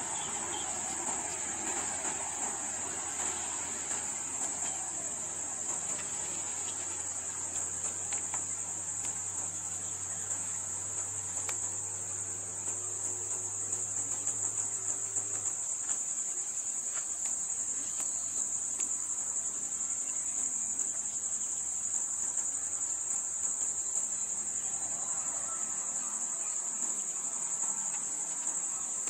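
Insects droning in the roadside forest, one steady high-pitched buzz that never lets up. Under it a faint low hum stops about halfway through.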